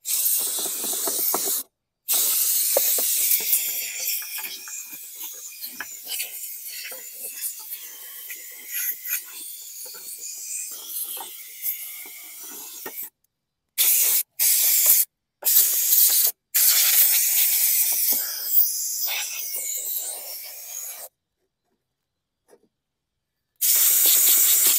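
Compressed-air blow gun on an air hose blasting dirt and debris out of the underside of a lawn mower deck. It comes as a loud hiss in several blasts that cut on and off sharply, with a longer pause near the end.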